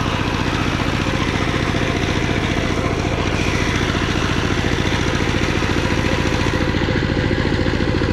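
Two-wheel power tiller's single-cylinder diesel engine running steadily under load as it ploughs a flooded rice paddy, with a fast, even beat.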